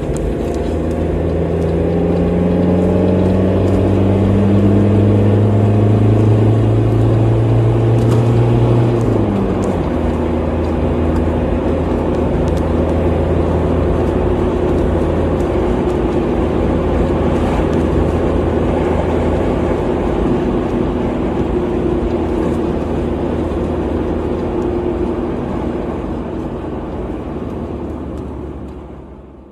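Car being driven: the engine runs steadily over road noise. Its note drops abruptly about nine seconds in, and the sound fades out near the end.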